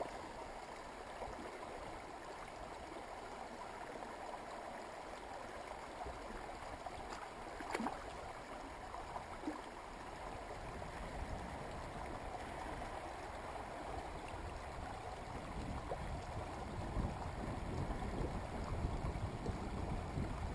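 Steady rush of a flowing stream, with a single sharp click about eight seconds in and low wind rumble on the microphone building in the second half.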